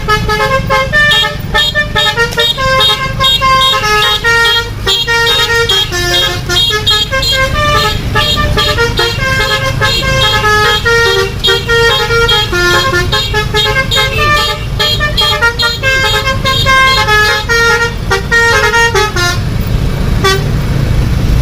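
Basuri telolet multi-tone bus horn playing a melody in quick stepped notes, loud, over a low rumble. The tune breaks off briefly near the end and then starts again.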